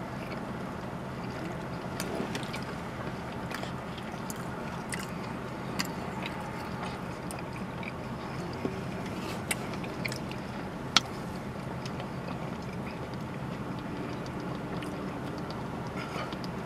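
Steady low hum inside a car cabin, with scattered small clicks and rustles of chewing and of handling paper food wrappers and a plastic water bottle.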